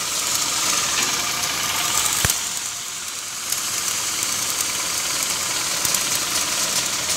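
Pressure washer running steadily and spraying water, a continuous motor drone and hiss, with one brief knock a little over two seconds in.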